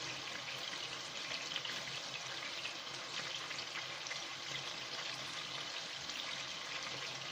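Chicken thigh pieces frying in a pan: a steady sizzle with fine crackling.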